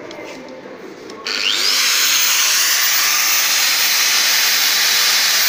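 Metabo KFM 15-10 F edge milling machine for metal switched on about a second in: its electric motor spins up with a quick rising whine, then runs steadily at full speed with a loud, high-pitched whirr.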